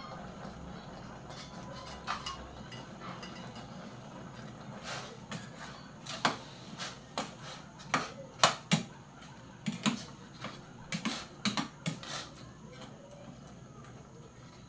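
Metal spatula stirring pork in a stainless steel pot, knocking and scraping against the pot in a quick irregular run of clinks that starts about five seconds in and stops shortly before the end, over a steady low background noise.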